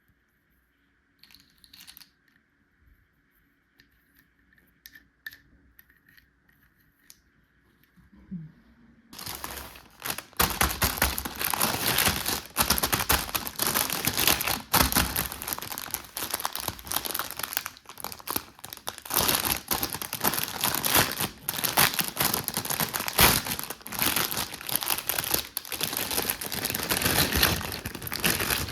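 A few faint clicks, then from about nine seconds in, loud, continuous crinkling of plastic packaging as a toy set is unwrapped.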